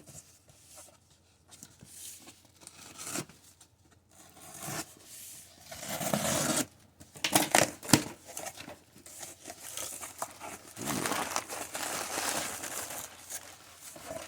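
Cardboard shipping box being opened by hand: tearing and crinkling of the packing, with a run of sharp rips about six to eight seconds in.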